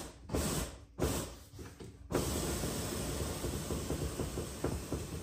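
Air suspension on a Nissan 370Z letting air out of its bags to lower the car ('airing out'). There are two short hisses of released air, then a steady hiss from about two seconds in.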